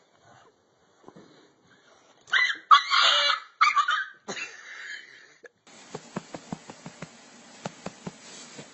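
Dog yelping and whining in a few short, loud, high cries. A second or so later comes a quiet stretch with a steady hiss and a run of light clicks or taps.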